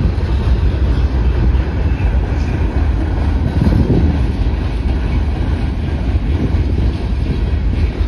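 Freight cars (boxcars and covered hoppers) of a passing freight train rolling by at close range: a steady loud rumble of steel wheels on the rails.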